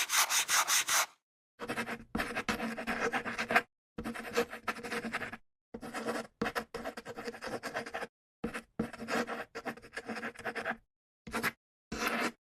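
Stomach gurgling and rumbling picked up close to the microphone, in about ten short stretches that start and stop abruptly with silent gaps between them.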